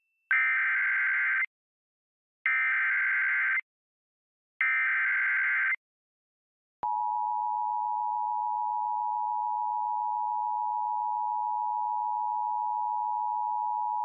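Emergency Alert System tones. First come three screechy data bursts of about a second each with short gaps (the SAME header). After a short pause, about seven seconds in, the steady two-tone EAS attention signal starts and holds. Together they announce a National Weather Service severe thunderstorm warning.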